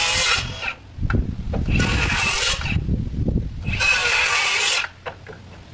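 Power saw cutting into the wooden rafters in three short bursts, each under a second, with low rumbling between them.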